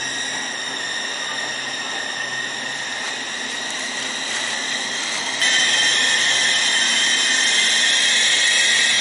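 Laos-China railway electric passenger train moving along the station platform: a steady high whine over running noise. It gets abruptly louder about five and a half seconds in.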